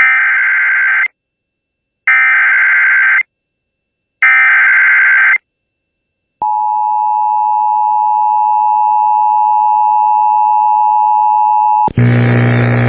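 Emergency Alert System broadcast alert: three one-second bursts of the warbling SAME digital header, a second apart, then the steady two-tone EAS attention signal held for about five and a half seconds. Near the end the tone cuts off and a louder, different sound with a deep hum starts abruptly.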